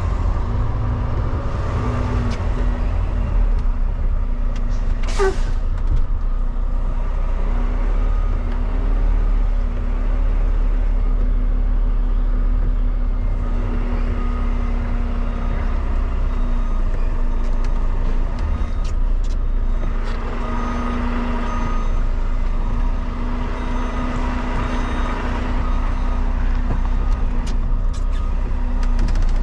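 Semi-truck's diesel engine running steadily with a low rumble while the rig is manoeuvred. About five seconds in there is one brief, sharp rising squeal.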